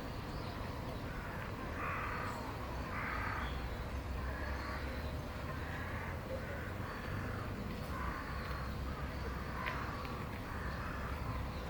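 An animal calling in a run of about nine short, harsh calls, roughly one a second, over a steady low background rumble.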